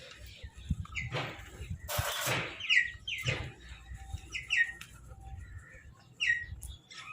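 Crows calling: a few harsh caws early on and near the middle, and a run of short, falling calls through the rest.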